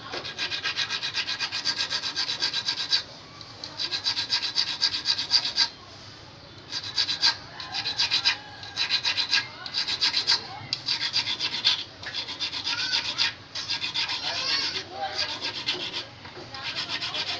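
Small needle file rasping on a steel fishing hook, sharpening its point and barb with rapid back-and-forth strokes. The strokes come in several bursts separated by short pauses.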